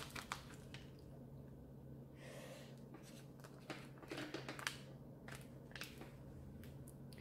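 Faint crinkling and small crackles of a plastic transfer-tape sheet and its gridded backing being handled while small vinyl pieces are peeled and placed, with a brief rustle a little over two seconds in. A low steady hum runs underneath.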